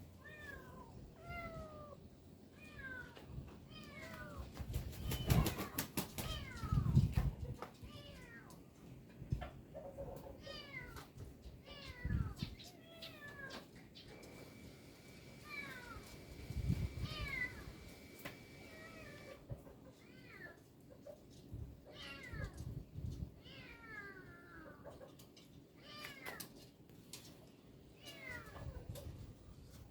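Kittens mewing over and over in short, high-pitched, falling cries, calling for their mother cat. A few knocks or thumps come in between, loudest around five to seven seconds in.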